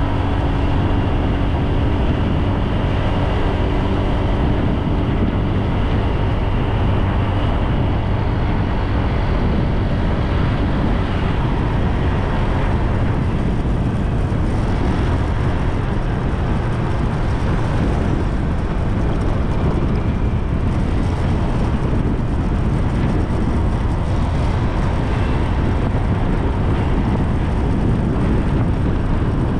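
Steady wind and road noise from riding a bike along a road, heavy in the low end. A faint engine hum fades away during the first several seconds.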